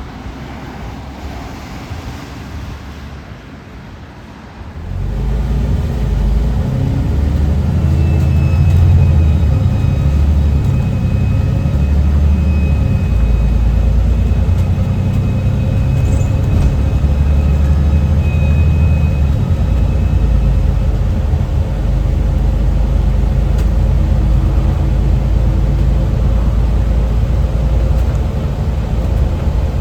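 Alexander Dennis Enviro400 MMC double-decker bus engine pulling away and accelerating, with a thin, high turbo whistle held for over ten seconds. Before the engine comes in, about five seconds of wind noise on the microphone.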